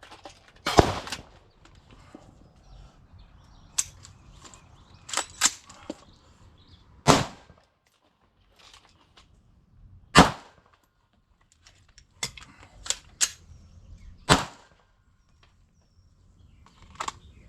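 Gunshots fired one at a time during a timed one-round, reload, one-round drill, with pauses of one to three seconds between shots while the gun is reloaded. The loudest shots come about one, seven, ten and fourteen seconds in. The long gaps are fumbled reloads.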